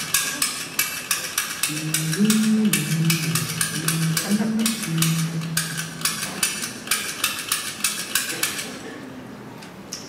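Lock pick gun snapping rapidly in a padlock, several sharp metallic clicks a second, its needle striking the pins to bounce the top pins up while tension is put on the plug to turn it. The clicking stops near the end.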